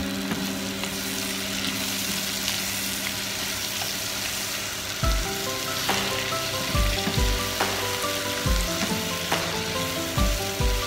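Diced tomatoes, carrots and peppers sizzling as they fry in a pot, stirred with a plastic spatula. Background music with a beat comes in about halfway through.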